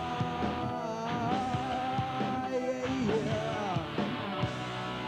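Rock band music: a long held melody note that bends in pitch near the end, over guitar and bass accompaniment.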